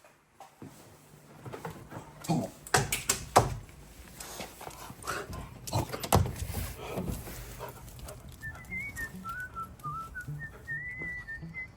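A series of sharp knocks and clatters, then, from about eight seconds in, a high wavering whistled tune.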